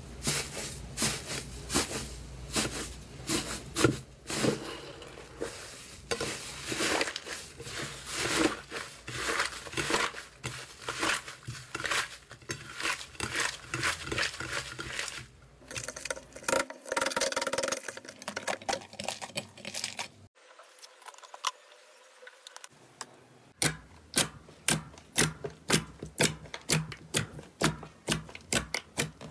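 Hands pressing and crumbling a crumbly green tofu-dregs slime, with dense crackling and crunching. After a break about two-thirds of the way in, hands press a glossy gold slime flat, giving sharp popping clicks about twice a second.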